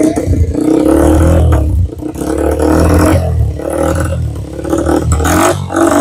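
TVS Apache RTR 160 4V's single-cylinder engine being revved through a carbon-finish aftermarket slip-on muffler held at the exhaust outlet. It is loud, rising and falling in repeated rev blips, with short dips between them.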